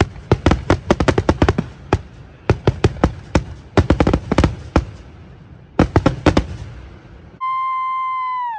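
Aerial fireworks bursting in quick succession, a dense run of sharp bangs and crackles. About seven seconds in they stop and a steady electronic tone takes over. The tone drops sharply in pitch as it cuts off.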